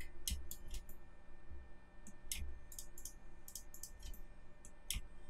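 Computer mouse buttons and keyboard keys clicking: a scattered, irregular run of light, short clicks.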